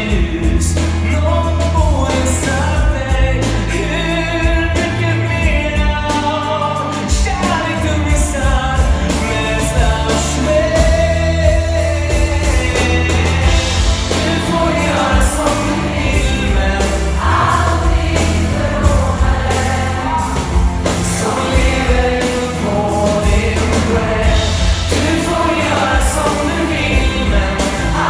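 Large mixed choir singing a pop song live with a male lead singer and a piano-led band, a steady bass beat underneath.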